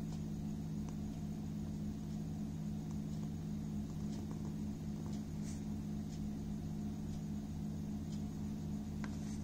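A steady low hum with a few faint, light clicks scattered through it.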